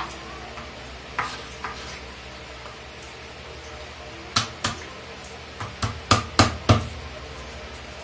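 Kitchen knife chopping on a wooden cutting board: a few separate knocks, then a quicker run of about five chops in the second half.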